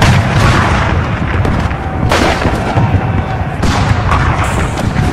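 Gunfire in a staged battle scene: sharp shots and booms at the start, about two seconds in and several close together near the end, over a dense, continuous din with voices beneath.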